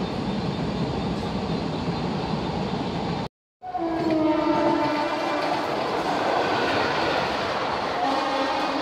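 WAP-4 electric locomotive sounding its horn, one long slightly falling note, as it speeds in with the Dadar–Chennai Egmore superfast express. Its coaches then rush past with wheel clatter, and a second short horn note comes near the end. Earlier, a steady platform din cuts off abruptly about a third of the way in.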